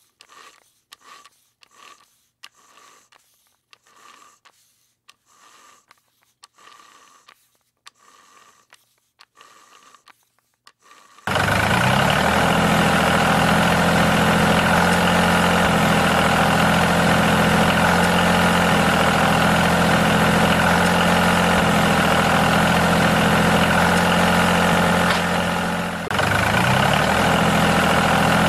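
Faint, regular soft clicking for the first ten seconds or so, then a steady engine sound like a tractor's diesel running starts suddenly and stays loud, dipping briefly and dropping in pitch before picking up again near the end.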